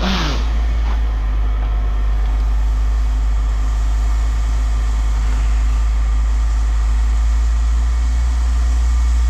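Steady low rumble of an idling engine, with a brief burst of noise at the start.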